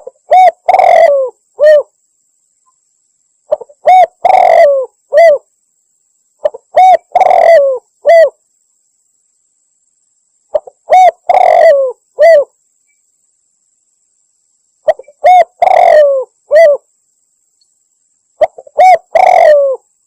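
Spotted dove (tekukur) cooing, played loud as a bird-lure call. A three-note coo phrase (a short note, a longer note that falls away, then a short note) repeats six times, about every three to four seconds, with silence between.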